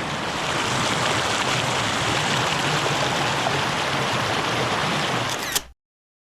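Small mountain creek running steadily over rocks, a loud, even rush of water. It cuts off suddenly near the end, just after a brief click.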